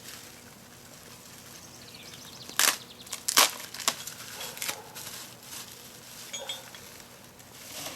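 Plastic packaging and bubble wrap being handled while small parts are unpacked: quiet rustling with a few sharp crinkles, the two loudest about two and a half and three and a half seconds in.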